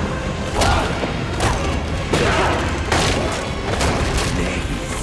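Dramatic film sound mix: a series of about six heavy booming impacts spread over five seconds, over a low rumble and musical score.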